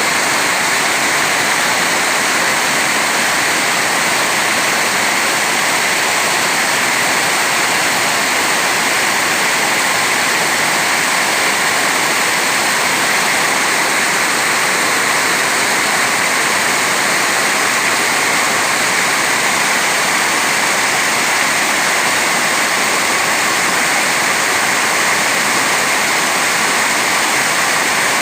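A large waterfall falling steadily, a loud, even rush of water with no change.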